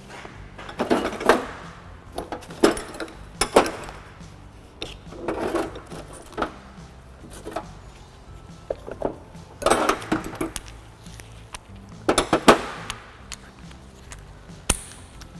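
Intermittent clinks and rattles of metal tools and parts being handled, in about six short bursts with a sharp click near the end, over faint background music.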